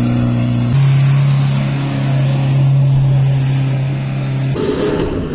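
Mahindra Thar engines held at high, steady revs while the wheels spin in sand. The engine note jumps to a different steady pitch about a second in and changes again near the end.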